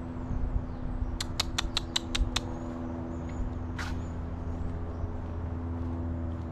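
A quick run of about seven sharp mouth clicks, roughly five a second, made to call a cat, followed a couple of seconds later by one short hissing kiss-like sound. Under them runs a steady low mechanical hum.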